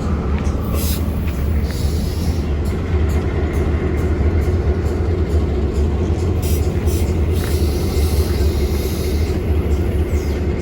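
Diesel-hauled train running: a steady low rumble with scattered clicks and knocks.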